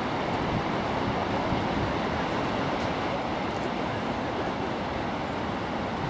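Gullfoss, a large two-tiered waterfall, pouring: a steady, unbroken rush of heavy falling water.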